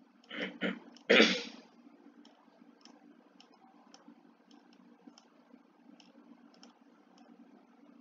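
Someone clears their throat about a second in, with a smaller catch just before. After it come faint, irregular computer mouse clicks, about one or two a second, over a low steady hum.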